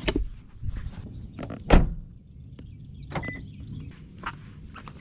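Knocks and clatter of fishing gear being handled in a car, over a low rumble, with one heavy thunk nearly two seconds in.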